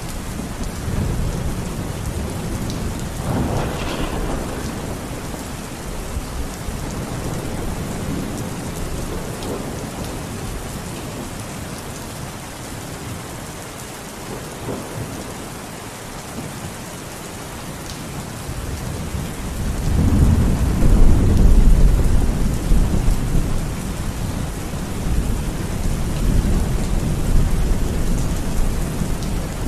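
Steady rain falling, with thunder: a brief crackle a few seconds in, then a deep rumble that swells about two-thirds of the way through and is the loudest part.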